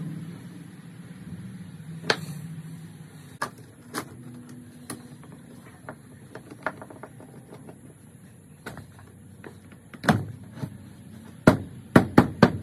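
Scattered clicks and knocks of metal bar clamps and hardwood strips as a glued cutting-board panel is clamped up and the strips are pressed flush, ending in a quick cluster of louder knocks.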